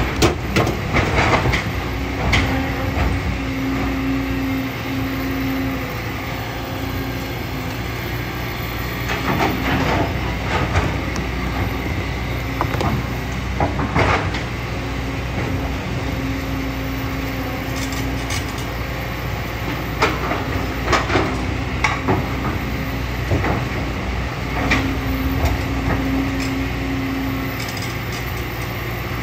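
Kobelco SK200 excavator working: its diesel engine runs steadily under load, with a hydraulic whine that comes and goes every few seconds and irregular sharp knocks and scrapes of the bucket digging through sand, gravel and rocks.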